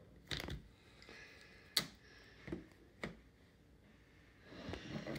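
Handling noise from a shrink-wrapped DVD box set: about four light knocks and clicks as the plastic case is turned over and set on the table, the loudest a little under two seconds in, with soft rustling of the plastic wrap between them and near the end.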